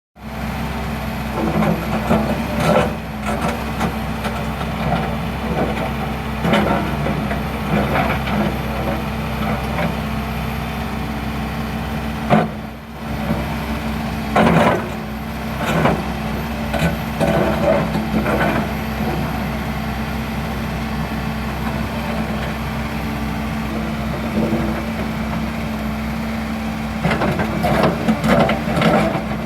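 Excavator engine running steadily, with irregular clanks and knocks from the machine working over it.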